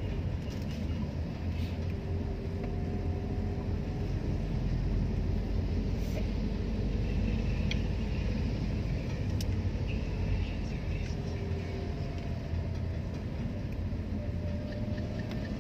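A car's engine and tyres on a wet road, heard from inside the cabin as a steady low rumble, with a faint engine tone that slowly rises and falls.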